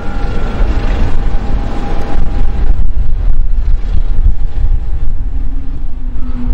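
Airbus A220-300's Pratt & Whitney PW1500G geared turbofans running as the jet taxis onto the runway: a steady low rumble with a thin engine whine that fades about three seconds in, and a lower engine tone coming up near the end.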